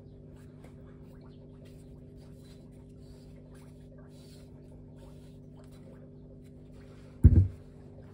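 Faint handling clicks of a Mazda 13B rotary engine rotor being turned over in the hands, over a steady low hum; about seven seconds in, one heavy thump as the rotor is set down on the workbench.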